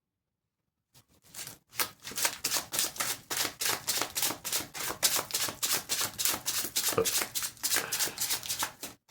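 Tarot cards being shuffled by hand: a fast, even run of crisp card slaps, several a second, starting about a second in.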